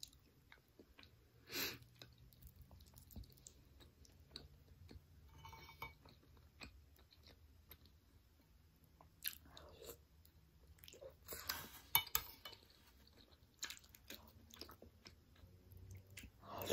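Close-up chewing of soft sticky rice (ketan) in durian kolak, with scattered small clicks and a louder cluster of chewing sounds a little past the middle.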